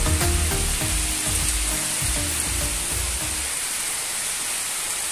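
Steady heavy rain, an even hiss, falling on a backyard garden of banana plants and maize. Background music fades out over the first three and a half seconds.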